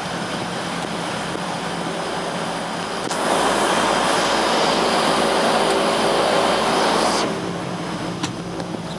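Twin Pratt & Whitney PT6A turboprops of a de Havilland Canada DHC-6 Twin Otter running, heard from inside the cockpit as a steady engine and propeller drone. About three seconds in the sound suddenly grows louder and hissier, holds for about four seconds, then drops back.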